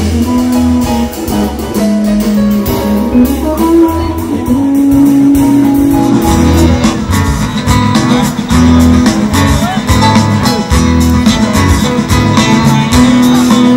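A band playing: strummed guitar over bass and drums.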